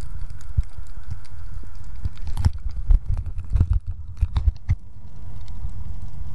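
Muffled underwater sound picked up through a camera's waterproof housing: a steady low rumble of moving water with a faint hum, and a cluster of sharp clicks and knocks from about two to five seconds in, typical of the housing being handled or bumped.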